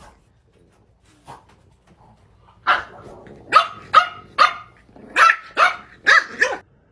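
A dog barking about eight times in quick succession, starting a little under three seconds in.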